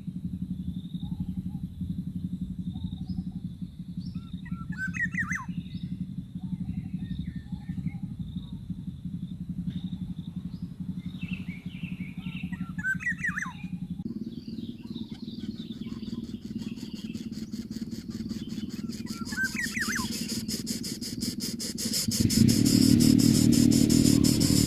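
A few short chirping bird calls over a steady low motor drone. A steady high insect-like tone runs through the first half, rapid even ticking takes over later, and the background gets louder near the end.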